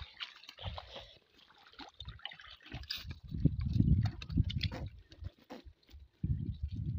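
Water dripping and trickling from a wet nylon cast net as it is lowered onto mud and handled, with dull low bumps from the handling from about three seconds in.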